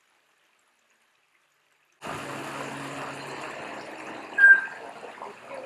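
Running water starts suddenly about two seconds in, with one short, clear bird note about two seconds later, louder than the water.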